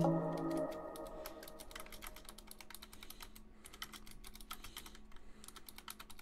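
Typing on a computer keyboard: a quick, uneven run of key clicks. The last notes of a song fade out during the first second or two.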